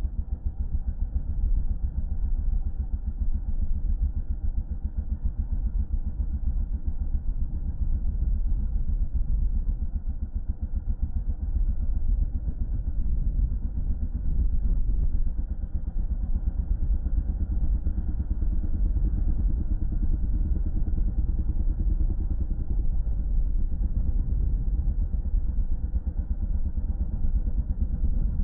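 Yamaha dirt bike's engine running steadily while riding along a street, a low rumble with no revving up or down.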